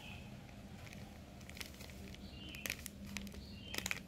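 Cappuccino coffee powder poured from a packet into a glass bowl: faint pattering with small crinkling ticks from the packet, busier from about two and a half seconds in, over a low steady hum.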